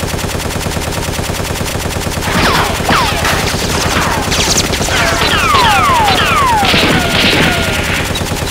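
Dubbed machine-gun fire sound effects: continuous rapid shots laid over the blaster action. From about two seconds in comes a string of falling whines, like bullets ricocheting.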